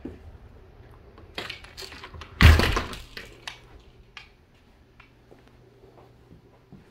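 A sliding patio door is worked open and then shut, with a few knocks and then one loud thump about two and a half seconds in as it closes. A few light clicks and knocks follow.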